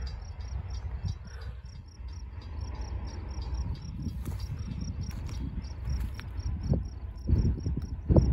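An insect chirping steadily, a short high chirp about three times a second, over a low, uneven rumble that swells near the end.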